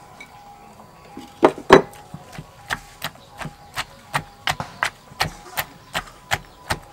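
Wooden pestle pounding tomatoes, long beans and peanuts in a clay mortar. After a quiet first second or so come two hard strikes, then a steady run of thuds about three a second.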